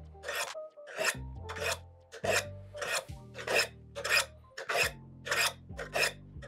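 Folding knife blade drawn in alternating light strokes down a pair of sharpening rods, using only the weight of the knife: a short metallic rasp with each stroke, about two a second.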